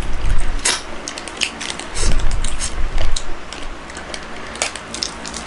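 Close-miked eating sounds: a run of irregular small clicks and crinkles from fingers handling food and a small packet, with chewing.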